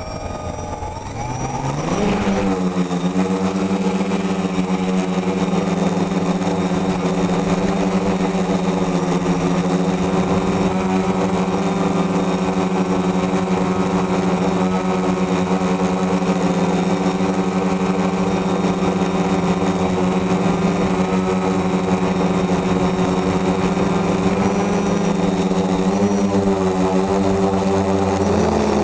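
DJI F450 quadcopter's four electric motors and propellers spinning up over the first two seconds, heard from the camera mounted on the frame, then a steady hum as it flies, with the pitch wavering briefly near the end as the throttle changes. A constant thin high whine sits over it.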